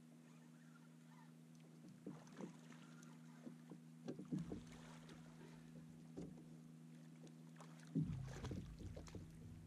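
A hooked channel catfish splashing and thrashing at the water's surface beside the boat about eight seconds in, after a few light knocks and clicks. A steady low hum runs underneath.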